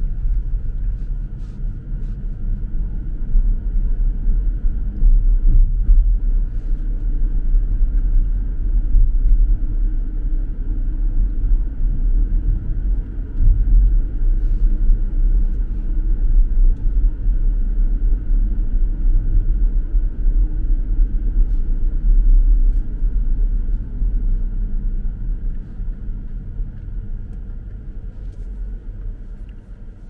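A car driving, with a steady low rumble of road and engine noise that eases off over the last few seconds.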